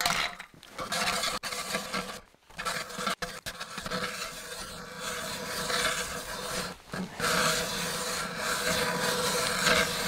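Hand-cranked ice auger boring through thick lake ice: a steady rasping grind of the blades cutting ice, dropping off briefly a few times as the crank is reset. It has not yet broken through to water.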